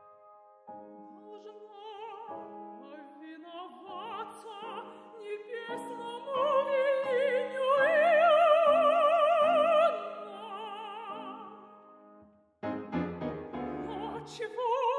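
Mezzo-soprano singing an operatic aria with wide vibrato over grand piano accompaniment, swelling to long held notes in the middle. About twelve seconds in the music dies away almost to silence, then the piano comes in suddenly and loudly with low chords, and the voice returns near the end.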